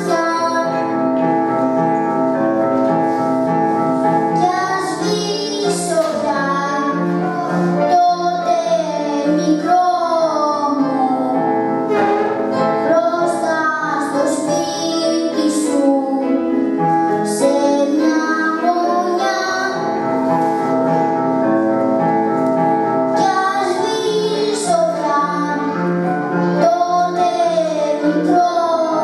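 Children singing a song together with instrumental accompaniment, the melody in held, gliding notes over a steady repeated bass note.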